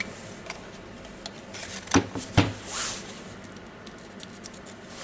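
Light clicks and taps from handling the opened cordless nut gun while its controller wires are moved, with two sharper knocks about two seconds in and a short rustle just after. No motor runs: the tool does not start.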